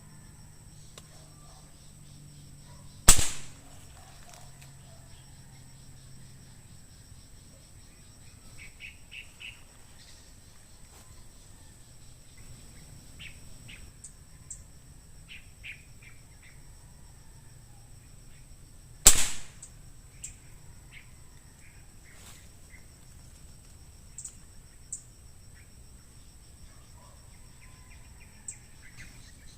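Air rifle fired twice, two sharp cracks about sixteen seconds apart. Between the shots, small birds chirp in short bursts over a steady high insect drone.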